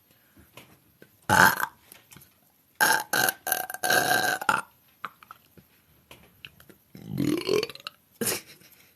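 A woman belching four times: a short burp a little over a second in, a long drawn-out belch from about three seconds in, then one whose pitch rises and a last short burp near the end.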